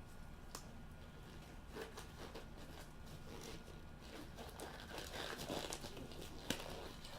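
Packaging of sealed trading card boxes being cut open and torn: crinkling and tearing with scattered sharp clicks, busiest in the second half.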